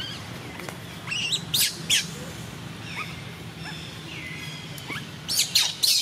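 Baby macaque giving a string of short, high-pitched squeals, with one longer falling whine about four seconds in and the loudest cries about a second and a half in and again near the end: distress cries of an infant being held off from nursing.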